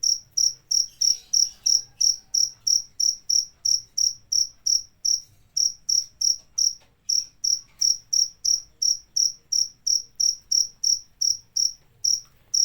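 A cricket chirping steadily, one short high-pitched chirp about three times a second in an even rhythm.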